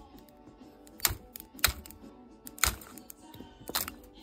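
Quiet background music with about six sharp, irregular clicks and taps over it, like small hard objects being handled or keys being struck.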